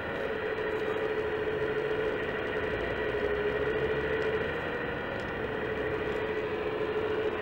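Scale RC hydraulic excavator (Wedico CAT 345D LME, 1:14.5) working its boom and bucket, giving a steady electric whine that wavers slightly in pitch.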